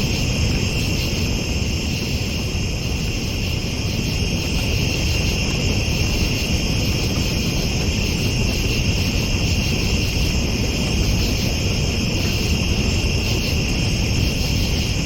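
Night chorus of crickets chirring steadily in a high, unbroken drone over a constant low rumbling noise.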